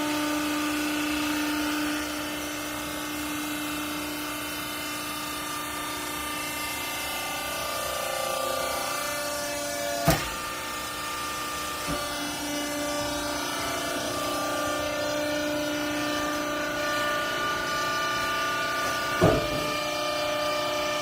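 Hydraulic pump and electric motor of a vertical scrap-clothes baler running with a steady whine whose pitch shifts a few times, with a sharp clunk about halfway through and another near the end.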